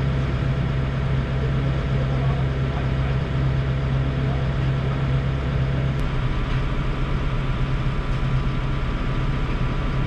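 Volvo EC60E mini excavator's diesel engine running steadily, with a strong low hum, heard from the machine's cab. There is a faint tick about six seconds in.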